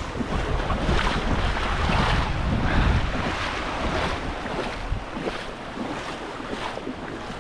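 Waves washing onto a beach, with wind buffeting the microphone in a low rumble that is heaviest over the first few seconds and then eases.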